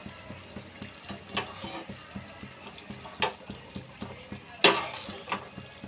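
Jalebi deep-frying in hot oil with a steady soft sizzle, nearly done, with a few sharp knocks, the loudest about two-thirds of the way through.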